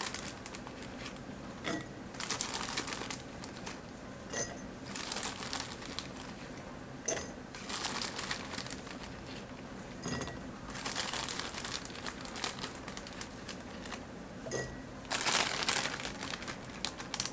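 Plastic zip-top bag crinkling in short, irregular bursts as fingers reach in and pull out pinches of chopped garlic scapes.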